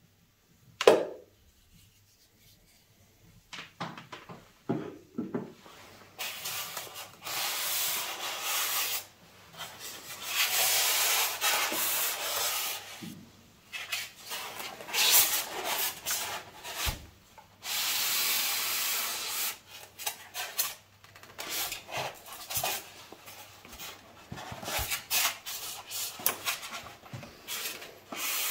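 Expanded polystyrene foam packaging rubbing and scraping as a lamp's arm is worked out of its moulded insert, in long noisy strokes of one to three seconds. A single sharp knock comes about a second in.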